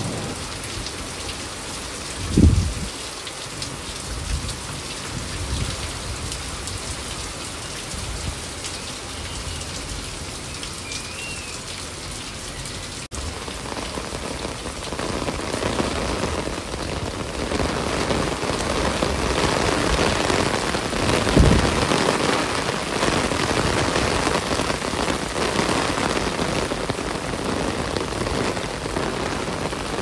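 Steady rain falling on garden plants and pots, growing heavier in the second half. Two brief low thumps stand out, about two and a half seconds in and again about twenty-one seconds in.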